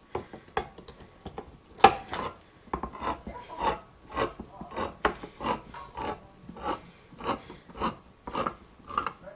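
Handheld crank-type can opener cutting around a tin can lid, a short rasping click with each turn of the key, somewhat under two a second.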